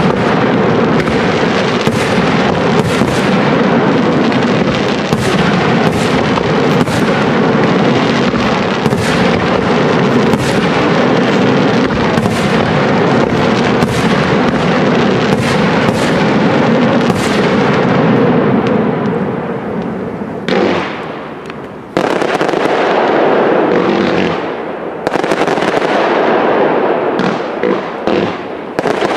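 Aerial fireworks display: a continuous dense crackle with sharp bangs about once a second. It thins out about two thirds of the way through, then starts again with a sudden bang and more bursts.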